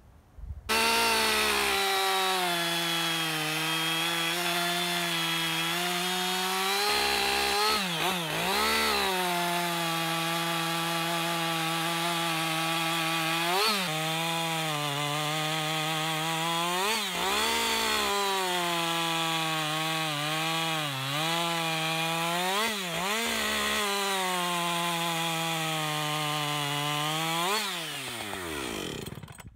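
Two-stroke chainsaw with a freshly hand-sharpened chain cutting through a hard, long-seasoned oak log at high revs. The engine note dips and recovers several times as the chain bites, then falls away near the end.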